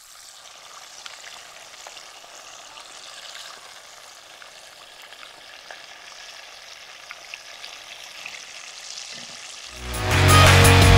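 Batter-coated chicken pieces sizzling steadily in hot oil in a clay pot, with a few faint crackles, as the fried pieces are lifted out. Loud music with drums comes in about a second before the end.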